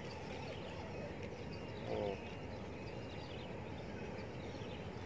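Steady outdoor background noise with faint high chirps, and one short voice-like call about two seconds in.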